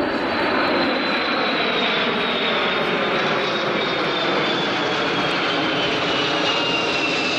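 Kawasaki C-1 twin-turbofan military transports flying over in formation: a steady jet rush with a high whine that slowly falls in pitch.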